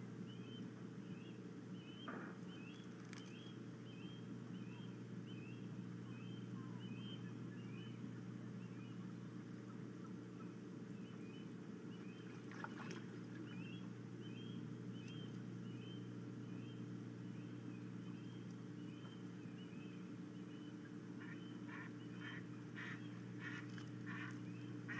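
Osprey calling: a long series of short high chirps, two or three a second, with a louder, harsher run of calls near the end. A steady low hum runs underneath.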